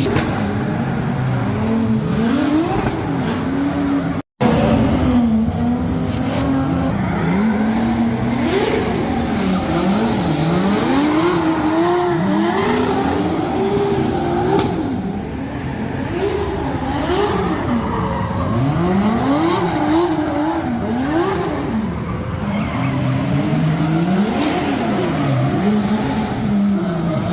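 Drift cars' engines revving hard, the pitch climbing and dropping over and over, with tyre squeal underneath as the cars warm up their tyres. The sound cuts out for an instant about four seconds in.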